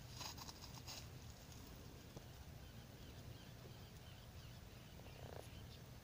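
Faint outdoor ambience at a calm lakeshore: a low steady rumble with scattered distant bird chirps, a quick cluster of clicks in the first second, and a short buzzy animal call near the end.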